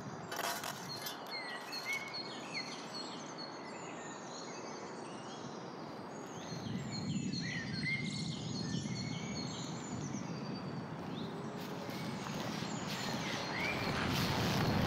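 Many small birds chirping over steady outdoor background noise. About halfway in a low rushing noise swells, and near the end a fast run of crackling clicks grows louder.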